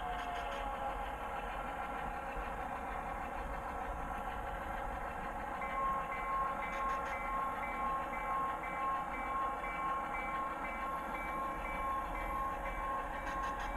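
Simulated EMD F7 diesel locomotive sound from an HO-scale model's Soundtraxx sound decoder: the engine drones steadily, its note easing down slightly near the start. About six seconds in, the locomotive bell starts ringing in a steady repeating clang.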